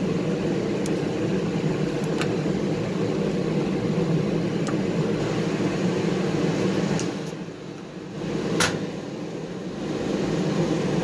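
A steady low mechanical hum from a running machine, with a few light clicks from a flat-blade screwdriver working at a small-engine carburetor. The hum dips for a couple of seconds about eight seconds in, where a sharper click comes.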